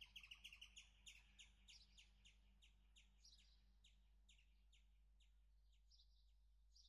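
Faint bird chirping: a quick run of short, high chirps that spread out and fade over a few seconds, with a few higher chirps mixed in later.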